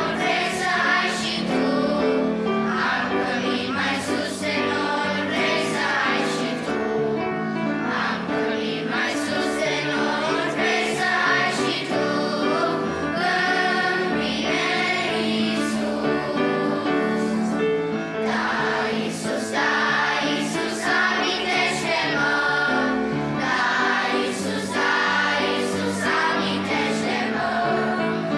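Children's choir singing a Romanian Christian hymn, accompanied on grand piano.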